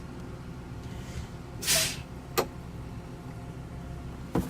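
A short, sharp hiss of compressed air from the school bus's air system, about a second and a half in, with a couple of sharp clicks from controls. A steady low hum runs underneath.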